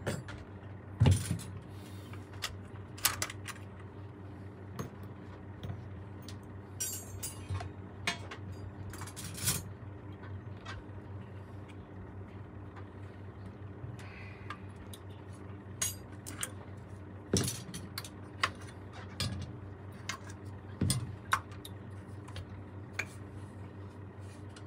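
Scattered metallic clicks, clinks and light knocks of tools and saxophone parts being handled during repair work, the sharpest about a second in and again around the middle and near the end, over a steady low hum.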